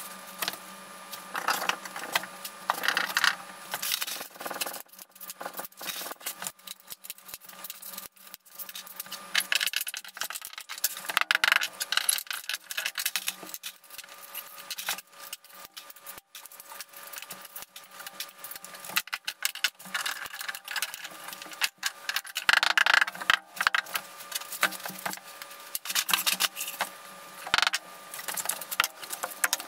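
Irregular clicking and clattering of plastic T-Lock tile-leveling clips and wedges, and large porcelain floor tiles being set and handled, coming in bunches of quick clicks.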